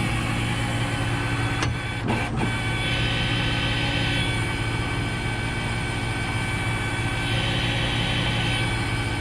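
A heavy engine running steadily. A few clicks come about two seconds in, and a higher whine rises over the engine twice.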